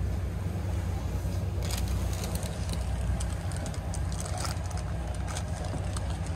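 Boat engine running with a steady low drone, heard aboard the yacht, with scattered light clicks from about two seconds in.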